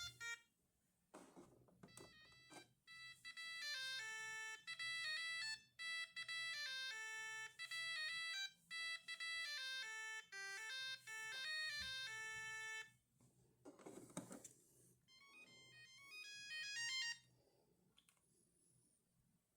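Siemens A50 mobile phone playing ringtones through its small speaker: a few clicks, then a melody of electronic beeping notes for about ten seconds. A short rush of noise follows, then a brief second melody.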